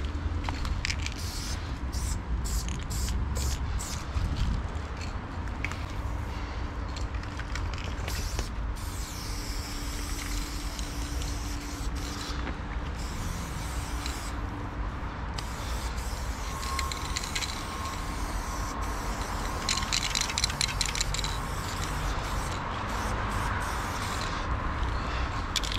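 Aerosol spray-paint can hissing as paint is laid on a stone wall, in short repeated bursts at first and then in longer passes. A steady low rumble of traffic or wind runs underneath.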